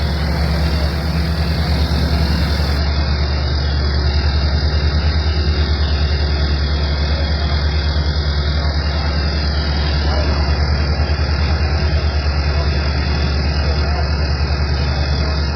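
Engine running steadily: a loud, even low drone with a fast regular pulse.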